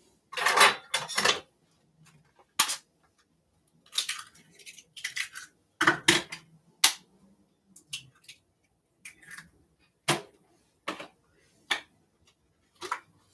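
Kitchen utensils and dishes clinking and knocking against a metal mixing bowl: a string of separate sharp knocks with short scraping sounds between them.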